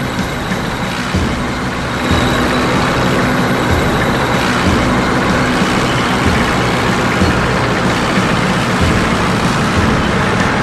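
Engine of a tracked armoured vehicle running steadily with a low hum, getting louder about two seconds in.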